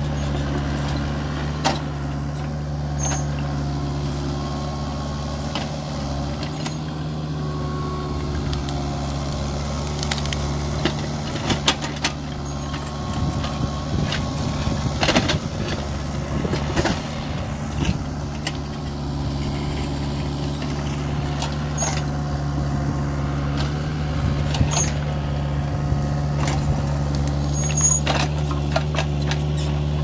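Kubota mini excavator's diesel engine running steadily under working load, with repeated knocks, clanks and cracks as its rake attachment digs through soil and drags brush. The knocks come most often in the middle and again near the end.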